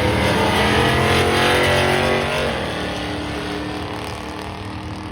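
Car engine running hard at high revs, then easing off and fading over the last couple of seconds.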